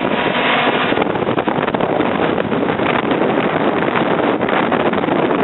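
Storm-force wind from the remnants of Hurricane Katia blowing hard across the microphone, a loud, steady rush of noise with small gusting swells.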